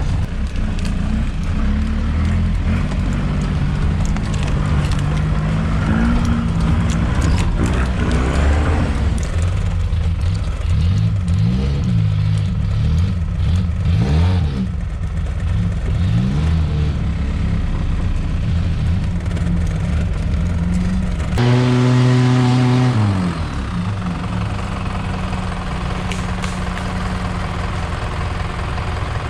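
Off-road 4x4's engine on the move, revving up and falling back again and again as it works through the gears. A louder, steady held note lasts about a second and a half roughly three-quarters of the way through.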